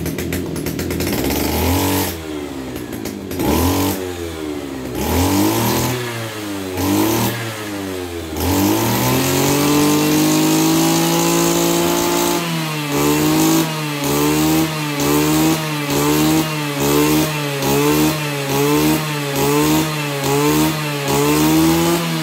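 Kioritz RMB-series brush cutter's small two-stroke engine being revved. It gives a few quick throttle blips, is held at high speed for about four seconds, then is pumped in rapid regular blips about once a second. The owner calls it a slow-revving, long-stroke engine with a big flywheel.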